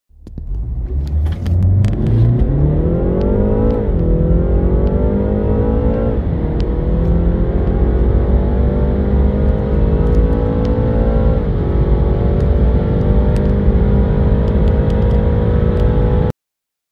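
BMW 3 Series engine under full-throttle acceleration from a standstill, heard from inside the cabin. Its note climbs steadily in pitch and drops sharply at upshifts of the automatic gearbox, about four, six and eleven seconds in, then cuts off suddenly near the end.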